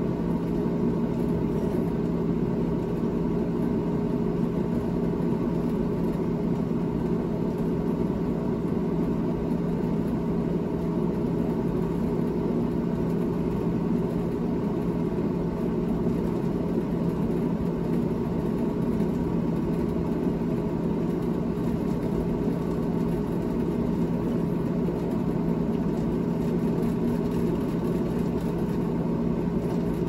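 The evaporator fan of a GE GTH18XCTZRBB refrigerator running with a steady, unchanging drone of several held tones. The owner considers the fan bad.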